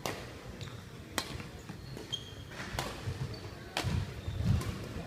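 Badminton rally: a shuttlecock struck by rackets four times, a second or so apart, with short shoe squeaks and heavy footfalls on the court floor. The footfalls are loudest near the end.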